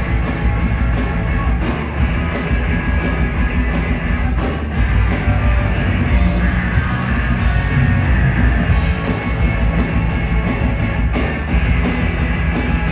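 Live rock band playing loud electric guitars and a drum kit, with heavy low end, unbroken throughout.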